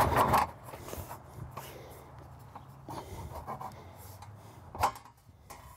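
Rustling and rubbing of pop-up camper tent canvas and a metal corner support brace being worked free by hand, loudest at the very start, then faint scattered rubs and small knocks, with one sharper click near the end.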